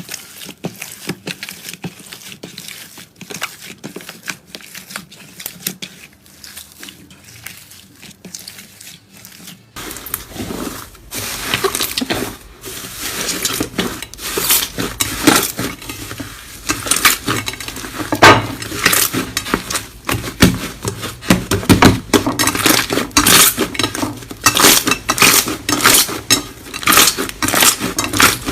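Slime being handled and squished, giving a fast run of sticky clicks and crackles. It grows louder and denser about ten seconds in.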